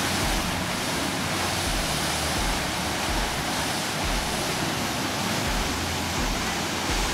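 Water released from a dam rushing and churning steadily in white, turbulent flow.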